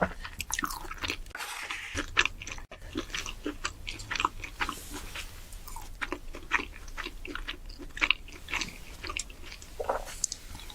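Close-miked eating: crisp crunches and chewing noises of food being bitten and chewed, coming irregularly several times a second, over a faint low hum.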